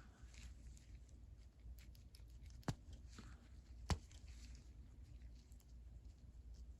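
Faint scraping and fiddling of a Channellock 906R ratchet's reversing switch being wiggled in its round head, with two sharp metal clicks about a second apart midway.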